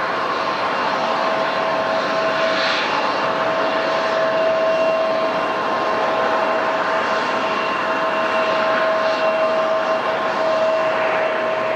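Jet airliner engines running: a broad rushing noise with a steady whine held throughout, swelling slightly midway.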